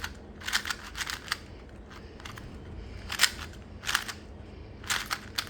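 Plastic 2x2 puzzle cube being turned during a solve: quick little groups of sharp plastic clacks, a burst about every second.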